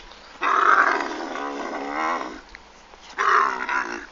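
Camel bellowing as it goes down onto its knees: a long, wavering groan, then a shorter one about three seconds in.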